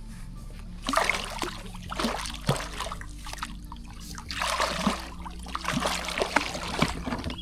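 Water splashing and trickling in irregular bursts, with sharp clicks and knocks among them, beside a kayak as a catfish is landed.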